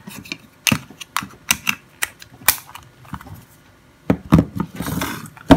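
Sharp plastic clicks and taps from handling a Nokia C3 phone as its back cover is fitted back on and the phone is set down: a quick run of clicks in the first two and a half seconds, then more clicks and a brief rustle near the end.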